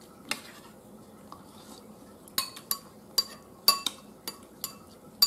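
Metal spoons clinking against bowls and a plate while eating: a single clink, then a run of about eight quick, ringing clinks starting about two seconds in.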